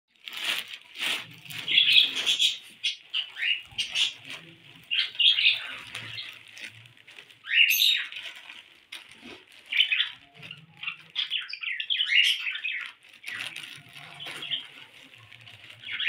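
Lutino cockatiel chirping and whistling in short, irregular bursts, with a rising whistle about eight seconds in.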